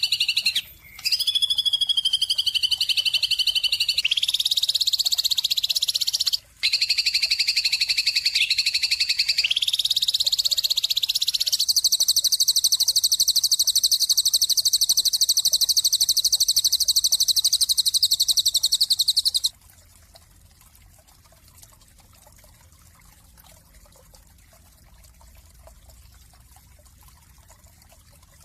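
A bird's high, very rapid trilling song made of several stacked tones, shifting pitch every few seconds with two brief breaks near the start. It cuts off suddenly about two-thirds of the way in, leaving only faint background.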